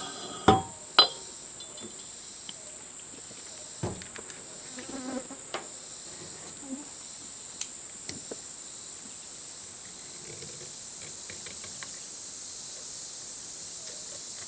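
Two sharp metal knocks about half a second apart near the start, then a few lighter clicks and taps as steel parts are handled in a stainless steel pipe container, over a steady high-pitched whine.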